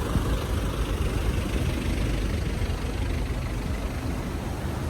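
Steady low rumble of idling engines.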